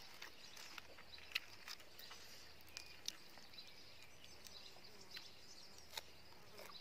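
Quiet eating sounds: scattered small clicks and ticks from fingers picking at food and from chewing. Under them is a faint steady high hiss of evening insects.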